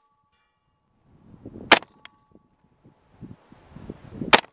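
Two suppressed .45 ACP pistol shots from a Glock 21, about two and a half seconds apart. A moment after the first comes a faint ping from the steel target being hit, which rings on with a steady tone.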